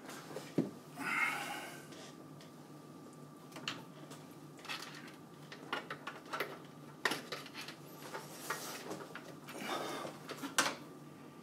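Scattered plastic clicks and knocks with brief rustles, the sound of a PC power-supply cable being handled, bent and pushed toward its plastic connector on the motherboard.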